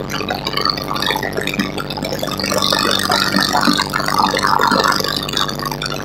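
Small plane's engine running steadily in flight, under wind noise that rattles and buffets, loudest in the middle.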